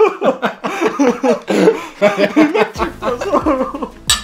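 Two men laughing heartily, then a single sharp clink of two drinking glasses touched together in a toast just before the end.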